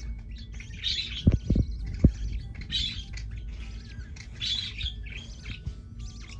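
Budgerigars chirping: raspy calls repeating every second or two. Three short low thumps come about a second and a half in.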